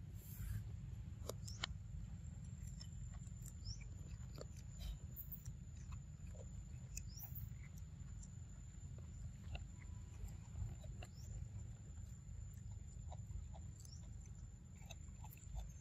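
Faint scattered clicks and crunches of a macaque gnawing kernels off a corn cob, over a low steady rumble.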